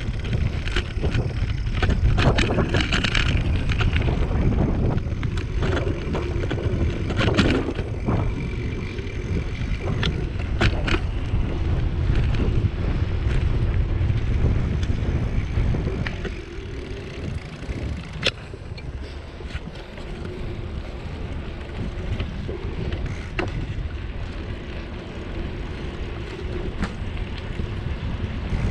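Wind rushing over the microphone of a camera on a moving bicycle, with tyre rumble on rough patched road and scattered sharp clicks and rattles. The rush eases a little past the halfway point.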